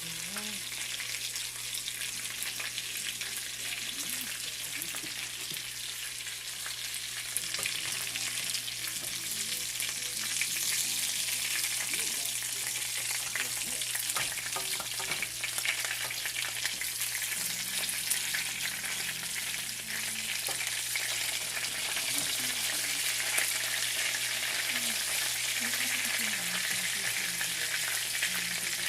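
Chicken frying in hot oil: a steady sizzle with dense, constant crackling.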